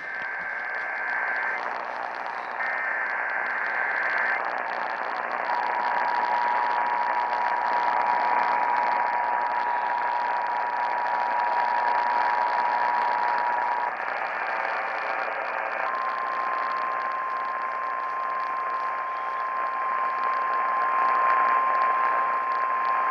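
Emergency Alert System tones received over a radio, with static hiss underneath. Two short bursts of warbling data tones come first, then a steady two-note attention signal for about eight seconds. After a brief break, a single steady warning tone starts and holds to the end.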